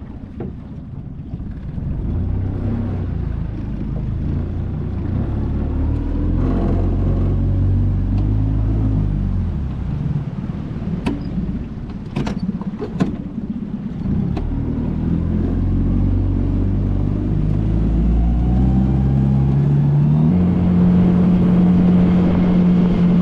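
Suzuki outboard motor running under way on a small boat. Its pitch steps up and down and climbs higher near the end, with a few short knocks in the middle. The motor has a problem the owner describes: at full RPM it sputters and won't reach full speed, which he suspects may be the new stainless steel prop.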